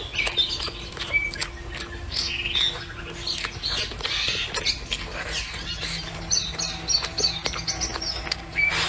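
Close-up eating sounds: wet chewing, lip smacks and clicks while braised pork ribs are bitten and chewed. Birds chirp in the background, most clearly near the end.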